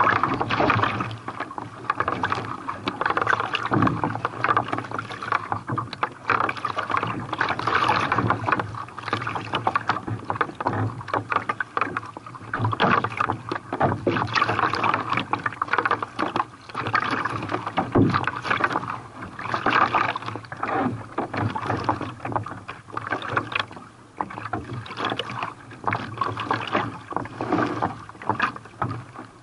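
Sea water splashing and rushing around a carbon kayak hull while it is paddled in waves. The sound comes in irregular surges every couple of seconds.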